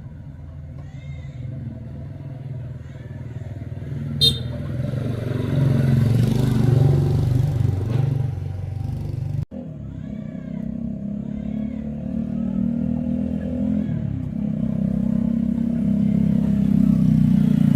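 Small motorcycle engine running steadily, growing louder in the first half, then cutting off abruptly about halfway before a second stretch of running that builds up again. A single sharp click about four seconds in.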